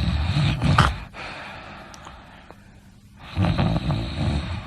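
A person snoring: two loud, rough snores, the first ending about a second in and the next starting after about three seconds.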